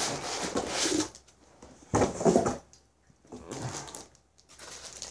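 Cardboard box and packaging being handled and searched through, rustling and scraping in several bursts.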